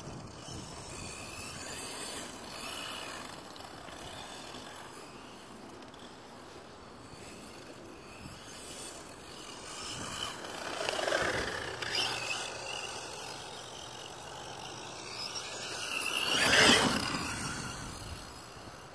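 Redcat Blackout XTE electric RC monster truck driving across dry grass: motor whine and tyres brushing through the grass. It swells twice as the truck speeds by, loudest near the end.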